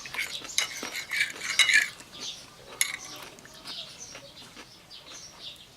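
Cutlery clicking and scraping against dishware as food is eaten, most of it in the first two seconds, with birds chirping in the background.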